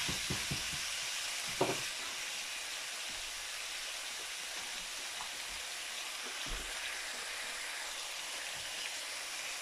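Diced meat sizzling steadily as it fries in a nonstick pan. A wooden spatula knocks against the pan a few times in the first two seconds.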